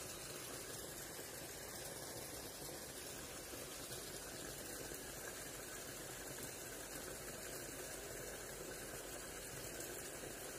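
Steady rush of running water from a small cascade pouring into a stream pool.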